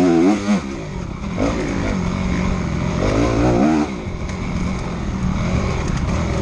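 Enduro motorcycle engine heard from on the bike, revving hard. Its pitch climbs and drops as the throttle is opened and closed, most sharply near the start and again around three seconds in, with steady running between.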